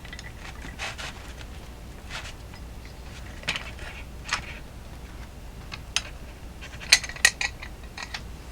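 Kitchenware being handled: a dozen or so light clicks and clinks at irregular intervals, more frequent in the second half.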